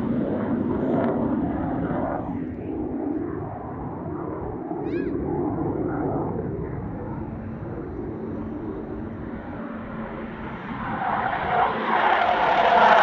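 Panavia Tornado's twin RB199 turbofan jet engines rumbling during takeoff. The roar eases through the middle, then swells loud and brighter near the end as the engines come nearer.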